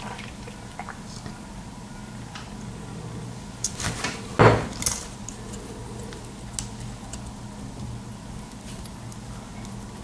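Small plastic and metal parts clicking and tapping as an inline RJ45 Ethernet coupler is handled and taken apart. There are scattered light clicks, then a short cluster of sharper clicks about four seconds in; the loudest is a knock around four and a half seconds.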